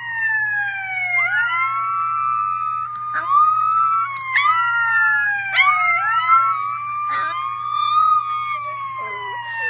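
Siren-like wailing, several voices overlapping, each falling in pitch and then sweeping back up over and over, with a dog howling along and three short sharp yelps in the middle.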